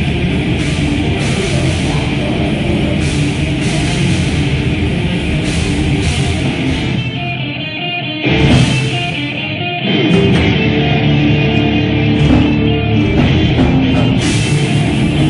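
Heavy metal band playing live with distorted guitars and drums. About eight seconds in the low end drops away for about two seconds, then the full band comes back in.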